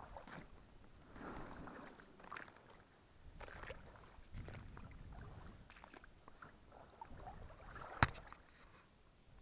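Oars dipping and splashing as a small inflatable boat is rowed, in irregular strokes, with a sharp knock about eight seconds in.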